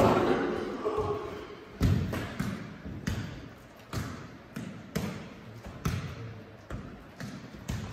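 A futsal ball being kicked and volleyed on an indoor pitch: a string of sharp thuds, one every half second to a second, each dying away in the hall. A player's voice is heard at the very start.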